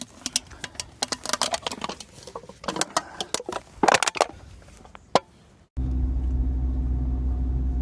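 Footsteps scuffing and clicking for about five seconds. Then an abrupt cut to the steady low rumble of a car driving, heard from inside.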